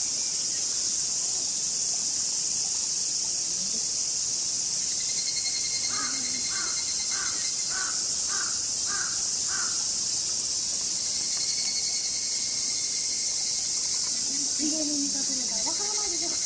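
A steady, high-pitched chorus of summer cicadas, with a crow cawing about seven times in a row around the middle.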